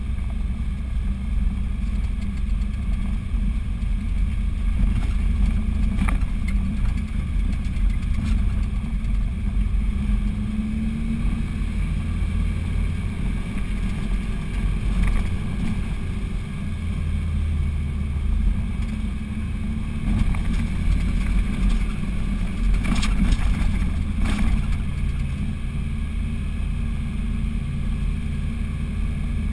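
Vehicle engine and road noise heard from inside the cabin while driving, a steady low drone with a few brief rattles or knocks.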